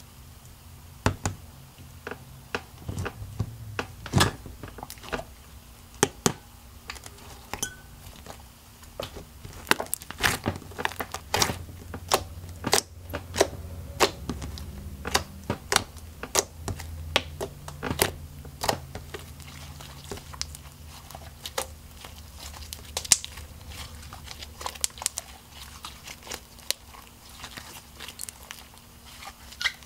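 Butter slime made with Model Magic air-dry clay being poked, squeezed and stretched by hand, giving irregular sticky clicks, pops and crackles.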